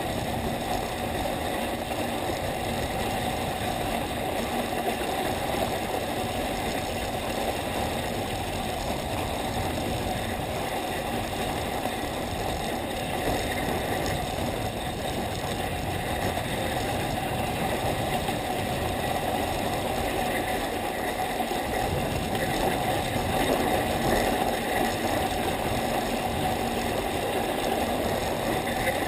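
Skis of a ski bike sliding steadily over packed snow while it is towed up a drag lift: a continuous, even scraping noise with no breaks.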